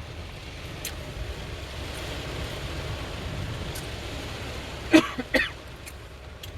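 Steady hiss and low rumble of a car in a rainstorm, with two short throaty vocal sounds about five seconds in.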